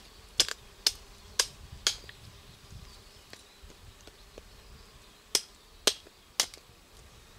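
Sharp cracks of roe deer rib bones giving way as a Yakut knife cuts through them. About five come quickly in the first two seconds, then three more, evenly spaced, about five and a half seconds in.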